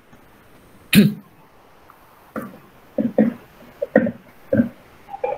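A person coughs once, sharply, about a second in, followed by a run of short, quieter voice sounds.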